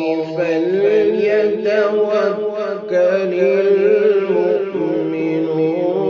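A male qari reciting the Qur'an in the melodic tajweed style. He draws out long notes, with quick wavering ornaments in the first half and a steadier held note later on.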